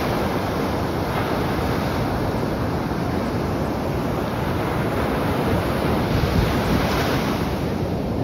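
Sea surf breaking and washing on a beach in a steady roar, with wind buffeting the microphone.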